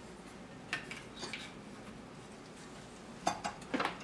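Light clicks and knocks of a leather honing belt being fitted onto a 1"x30" belt grinder, the belt and the grinder's upper belt arm handled by hand: a few scattered clicks, then a quicker cluster of knocks in the last second. The grinder's motor is not running.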